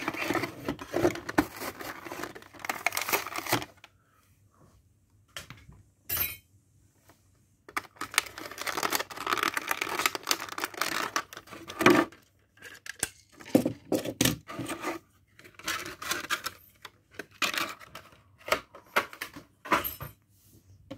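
Clear plastic blister packaging being cut, pulled and torn open, crinkling and tearing in irregular bursts with sharp clicks and knocks, one knock about halfway through the loudest. It goes nearly silent for a few seconds about four seconds in.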